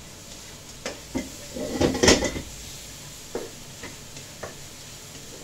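Spatula knocking and scraping in a nonstick wok while stir-frying shrimp: a handful of knocks, the loudest cluster about two seconds in, over a steady hiss.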